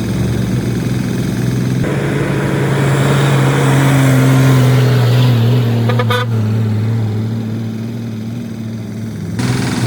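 A heavy machine's diesel engine running under load, its deep hum swelling from about two seconds in and easing off after five. There is a short rapid rattle about six seconds in, and the sound changes abruptly near the end.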